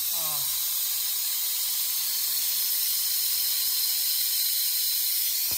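Steady rushing hiss of air from a blower fan, with a brief vocal sound at the very start; the hiss cuts off suddenly near the end.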